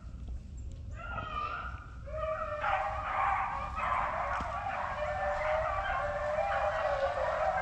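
A pack of beagles baying in chorus as they run a rabbit's scent trail. A few voices start about a second in, and more dogs join about two seconds in, giving a continuous overlapping chorus.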